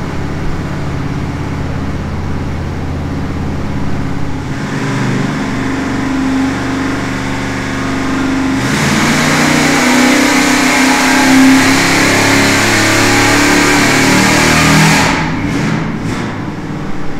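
Freshly rebuilt 461 cubic inch Pontiac V8 running on an engine dyno during a short load pass. It runs steadily, then a little past halfway its note rises and gets much louder as it climbs slowly under load, and it drops back sharply near the end. Untuned, it is running extremely lean.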